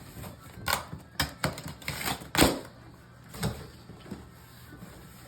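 Cardboard boxes being opened and handled: a run of sharp scrapes and knocks, the loudest about two and a half seconds in, growing quieter after that.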